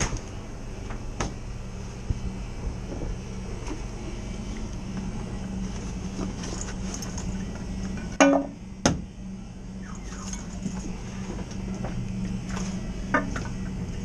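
Steady hum of the reach-in cooler's refrigeration unit running, with light clinks and rattles as refrigerant hoses and gauge fittings are handled, and two sharp knocks a little after eight seconds in.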